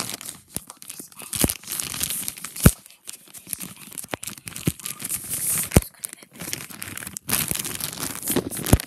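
Crinkly wrapping being crumpled and torn close to the microphone, a continuous crackle broken by a few sharp knocks as it is handled.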